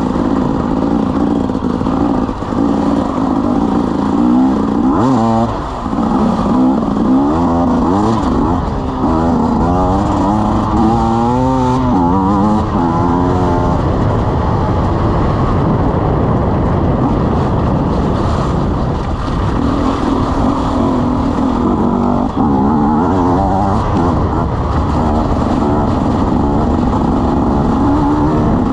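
KTM 300 EXC Six Days' single-cylinder two-stroke engine running under load, its pitch climbing and dropping again and again as the throttle is worked and gears change.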